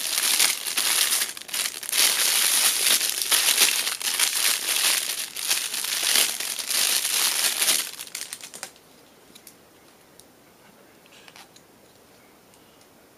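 Thin plastic packaging bag around a light bulb socket crinkling and rustling as it is handled, dense and loud, stopping about eight and a half seconds in; a few faint clicks follow.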